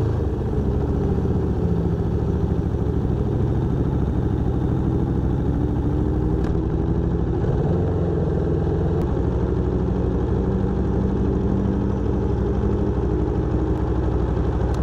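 Aprilia Tuono V4 1100 Factory's V4 engine running at low, fairly steady revs, heard through an external mic in the front fairing that makes it sound a bit distorted.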